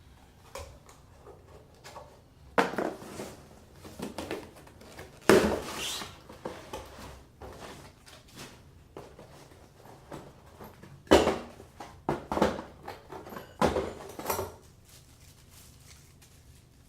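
Faucet parts and packaging being handled by hand: rustling and scraping broken by several sharp clattering knocks.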